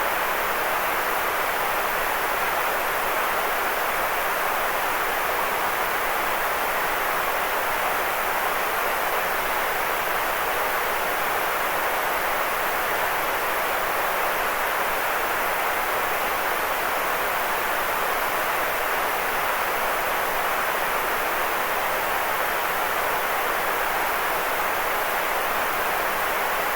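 Steady white noise: an even, unchanging hiss centred in the middle range, with little deep rumble or high sizzle.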